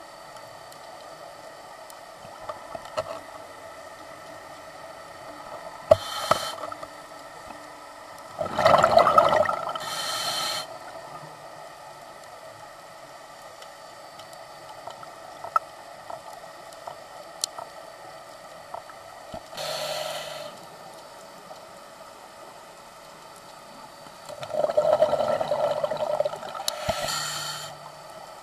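Scuba diver's regulator breathing underwater: gushes of exhaled bubbles lasting one to three seconds, about four times with long gaps between, the loudest a little under ten seconds in, over a steady background hum.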